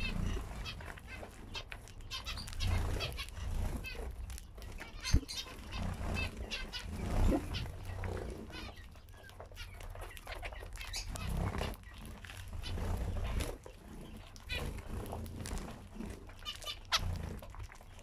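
A flock of zebra finches calling with many short, repeated chirps while feeding on seed, with a sharp tap about five seconds in.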